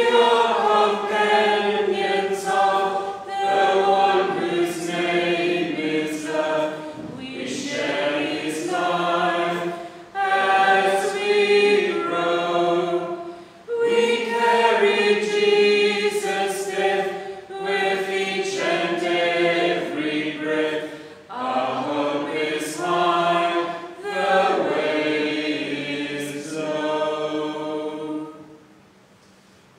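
Congregation singing a hymn in phrases, with brief pauses between lines; the singing ends near the end.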